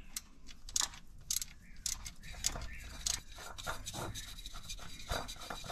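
Faint, irregular clicks and rubbing of hand work on an engine's underside: a socket ratchet tightening the new oil pump's bolts, then a spin-on oil filter being turned on by hand.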